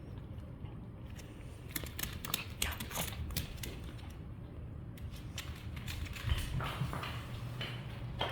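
Scattered light clicks and taps, coming in two clusters, from a small Yorkie's claws and paws scrabbling as it plays with a plush toy. A low steady hum runs underneath.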